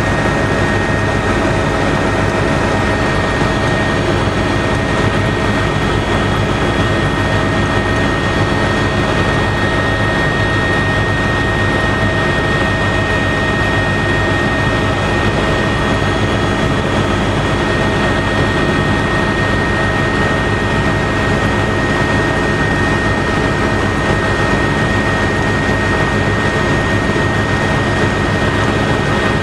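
Helicopter in flight, heard from inside the cabin: a loud, steady drone of engine and rotor noise with a steady high-pitched whine over it.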